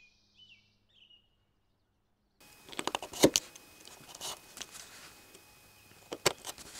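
A few faint bird chirps, then from about two seconds in a folding utility knife slicing and scraping through the end of a leather belt on a cutting mat. The cutting comes as sharp clicks and scratches, loudest about a second after it starts.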